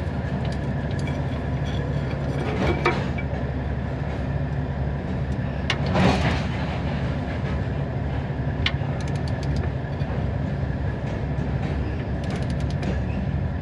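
A truck engine idling steadily, with short runs of ratchet-wrench clicks and a few sharp metal clicks as the mounting of a Firestone trailer air spring is tightened from underneath.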